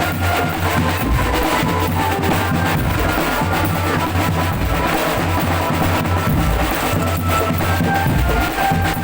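Drum band playing: bass drums and snare drums beating continuously under a melody of short pitched notes.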